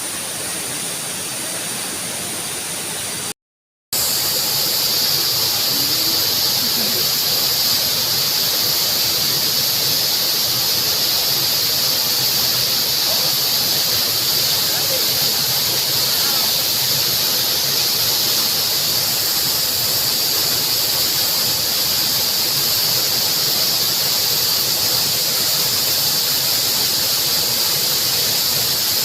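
Steady rushing of a waterfall, with a constant high-pitched drone over it. The sound drops out briefly about three and a half seconds in, then carries on slightly louder.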